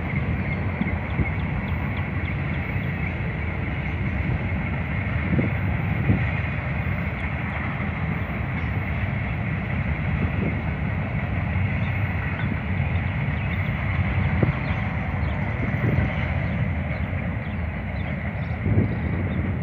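Norfolk Southern freight train rolling past: a steady rumble of wheels on rail, with a few scattered knocks.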